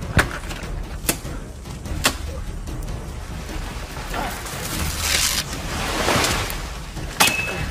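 Machete chopping through jungle vegetation: three sharp chops about a second apart, a rustling swish of leaves and stems a few seconds in, and one more chop near the end.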